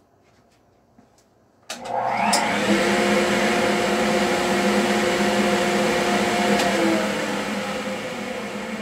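Jet shop dust collector switched on with a sudden loud rush of air about two seconds in, running steadily with a low hum under the air noise, then switched off about five seconds later and winding down.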